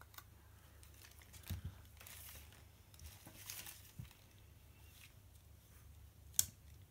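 Faint paper rustling from a sticker being peeled off its backing sheet and pressed down onto a paper planner page, with one sharp click about six seconds in.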